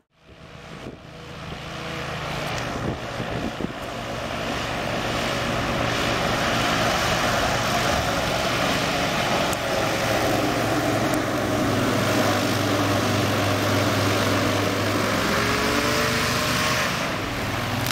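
Hovercraft engine and open air propeller running, fading up from silence over the first few seconds into a steady, loud drone. The engine note shifts briefly near the end.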